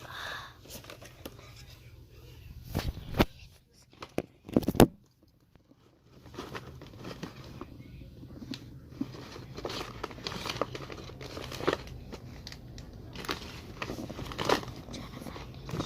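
Crinkling, crackling handling noises, with loud sharp knocks about three and four and a half seconds in, then a near-silent second before the small crackles return.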